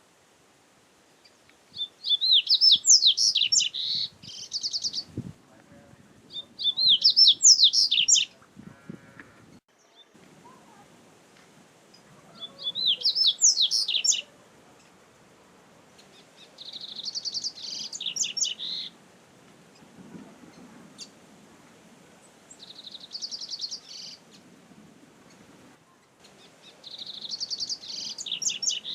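Double-collared seedeater (coleiro) singing six short, rapid twittering phrases, each a couple of seconds long, with pauses of a few seconds between them.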